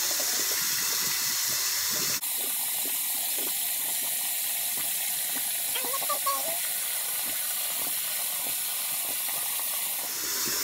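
Tap water running steadily from a faucet into a sink while a makeup eraser cloth is rinsed under it. There is a brief sharp click about two seconds in.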